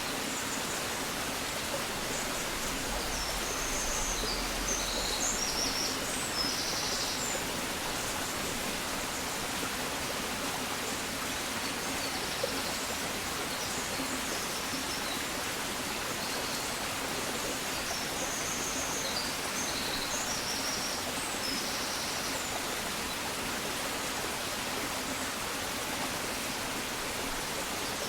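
Steady rushing of running water, with small birds chirping high-pitched in short clusters every several seconds.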